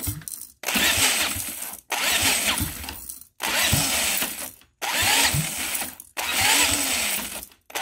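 Electric drill spinning the flywheel nut of a see-through Briggs & Stratton single-cylinder engine on EFI, cranking it in about six bursts of a second or so each with brief stops between. The engine does not catch; the owner thinks its ignition timing is way off.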